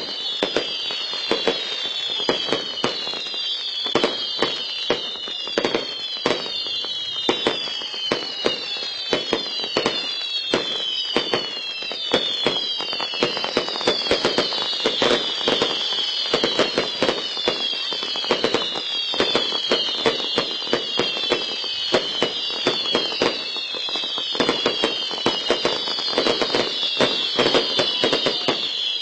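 Fireworks display: a steady run of bangs and crackling pops, with high falling whistles repeating about once a second.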